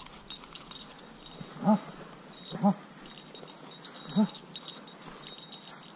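A Weimaraner puppy gives three short cries, the first two a second apart and the third a second and a half later.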